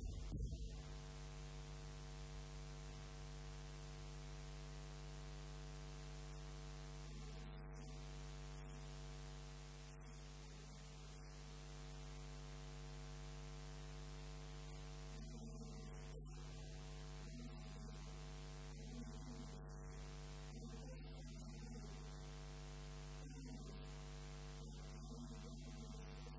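Steady electrical mains hum, a buzz with many evenly spaced overtones, with a brief louder noise right at the start and a voice faintly heard through it in the second half.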